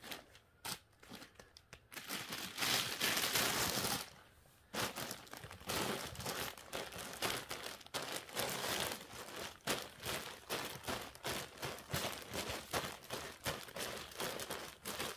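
Plastic bag liner crinkling and crunching with mushroom substrate as it is packed into a plastic crate: a loud rustle of about two seconds near the start, then a long run of irregular crackling as the bagged substrate is trodden down underfoot to compact it.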